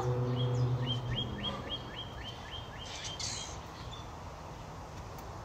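A bird calling a run of about a dozen short, evenly repeated chirps, about three a second, over steady outdoor background noise. A low steady hum fades out in the first second or so.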